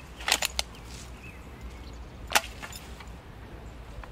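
Staffordshire bull terrier crunching a stick in its jaws: a quick cluster of sharp cracks shortly after the start, then one louder crack a couple of seconds later.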